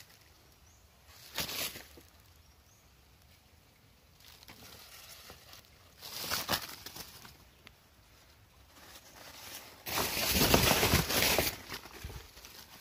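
Dry leaf litter rustling and crackling as something moves over it, in three short bursts, the longest and loudest a little before the end.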